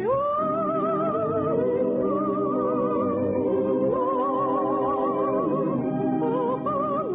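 Operetta music: an orchestra with a high melody in long held notes with wide vibrato, moving to a new pitch every second or two.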